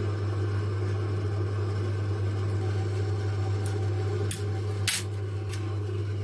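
Light clicks and taps of small lens parts being handled on a workbench, the sharpest about five seconds in, over a steady low hum.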